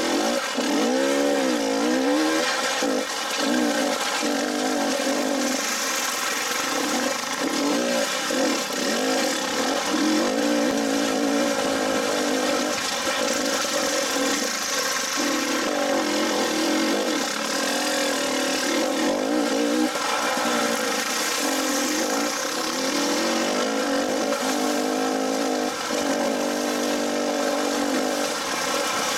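Dirt bike engine running close up under a rider climbing a rocky trail, its pitch rising and falling constantly as the throttle is worked, over a steady rushing hiss.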